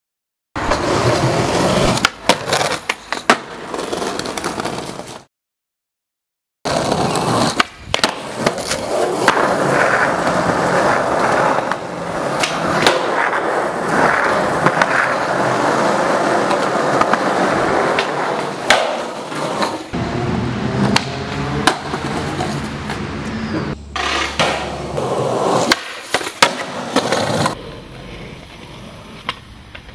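Skateboard wheels rolling over concrete, broken by sharp clacks and slaps as the board is popped and lands on tricks. A few seconds in there is a short silent gap.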